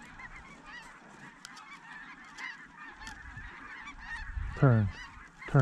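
A chorus of snow geese calling, many overlapping high honks, with two loud honks falling in pitch about a second apart near the end.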